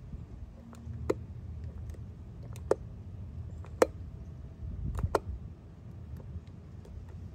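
Fingers picking and peeling at a small vinyl decal and its backing: a few sharp little clicks spread through, over a low steady rumble.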